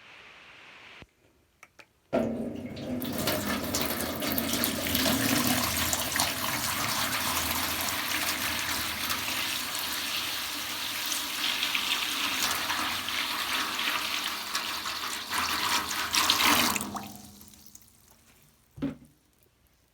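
Water running hard from a tap, starting suddenly about two seconds in and dying away a few seconds before the end, followed by a single short knock.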